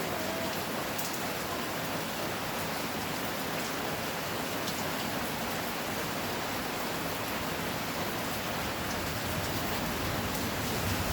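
Steady rain falling, an even hiss with a few sharper drips now and then.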